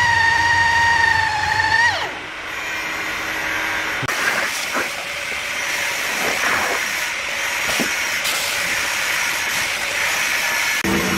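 Handheld electric drill with a boring bit whining at a steady speed into a dry log, then spinning down about two seconds in. From about four seconds on, a handheld power tool works along the wood with a rushing hiss that swoops up and down in pitch as the load changes.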